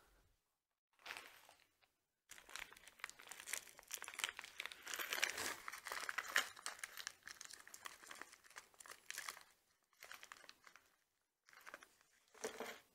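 Small clear plastic bag of bolts crinkling as it is handled, off and on, with short pauses.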